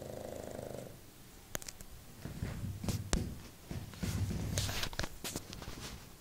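A sleeping pug snoring: a rattling snore ending about a second in, then a few seconds of irregular snorts and sharp clicks. Loud snoring like this is typical of a short-nosed breed's narrow airway.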